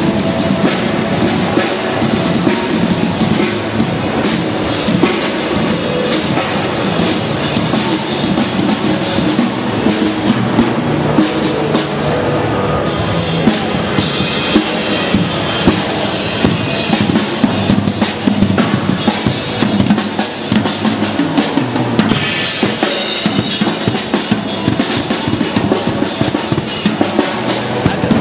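Loud music driven by drums, with bass drum and snare hits coming in quick succession throughout.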